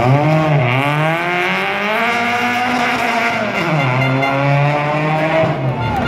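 Rally car engine revving hard through a corner, its pitch dropping off and climbing back up twice.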